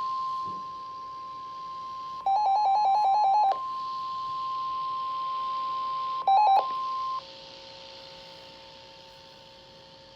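NOAA Weather Radio 1050 Hz warning alarm tone, a steady high electronic tone. It is the signal that a warning such as a High Wind Warning follows. A weather radio's pulsed electronic alert beeping cuts in over it for about a second, and again briefly about six seconds in. The 1050 Hz tone cuts off about seven seconds in, leaving a fainter steady tone.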